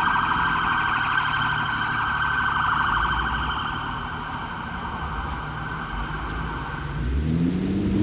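Fire apparatus electronic siren sounding in a fast warble, cutting off about seven seconds in, followed by a lower tone rising in pitch.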